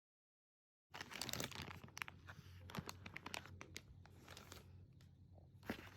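Packaging being handled, starting about a second in: crinkling and tearing with irregular sharp clicks and rustles, over a faint steady low hum.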